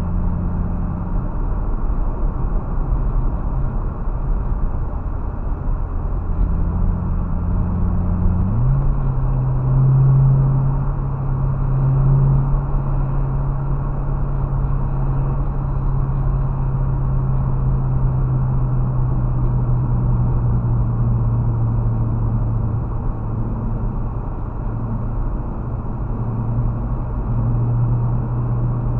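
A car driving on an open road, heard from inside the cabin: steady engine and tyre noise with a low hum that steps up in pitch about eight seconds in and then holds.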